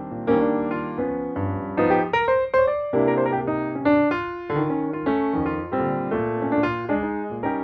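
Background piano music: a melody of separate notes, each striking and then fading.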